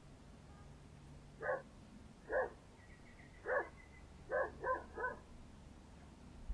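A dog barking six times in short, separate barks, the last three in quick succession.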